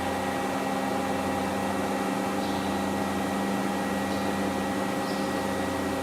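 AWEA LP-5025YZ CNC double column machining center running: a steady mechanical hum with several steady tones, and a few faint brief ticks.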